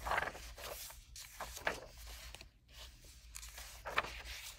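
Pages of a paperback coloring book being turned by hand, the paper rustling in several short brushes.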